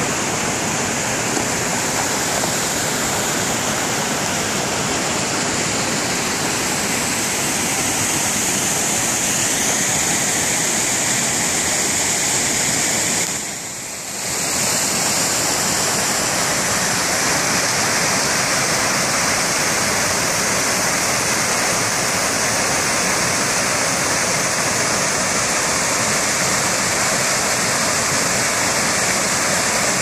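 Small woodland waterfall and stream pouring over rock ledges: a steady rush of water that dips briefly in level about halfway through.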